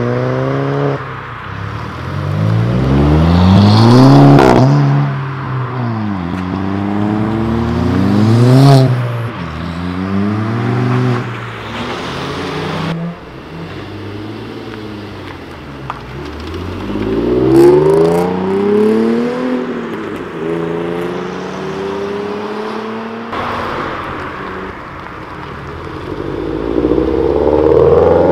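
Cars accelerating hard, their engines revving up through the gears. The pitch climbs and drops back at each gear change, over several separate pull-aways.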